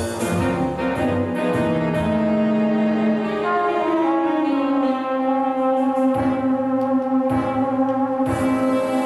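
Slide trombone playing a tune live, moving through several notes, then holding one long note from about halfway through.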